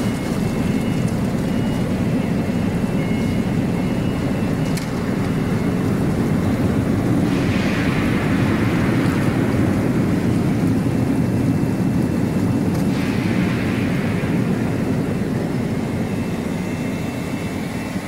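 Fruit-and-vegetable bubble washing machine running: a steady rumble of its air blower and water churning with air bubbles. A brighter splashing hiss rises about seven seconds in and again about thirteen seconds in.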